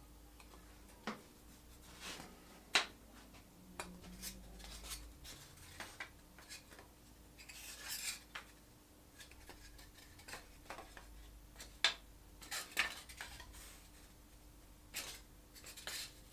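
Irregular light clicks, taps and brief scraping or rubbing as cut foam pieces are handled and separated from their sheets, over a faint steady hum.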